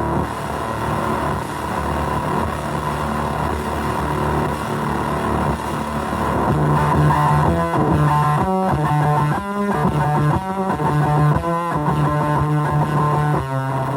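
Electric guitar played through a fuzz pedal modelled on the Devi Ever Hyperion. Thick fuzzy notes ring out long at first, then from about halfway it plays a choppy riff of short, chopped-off notes.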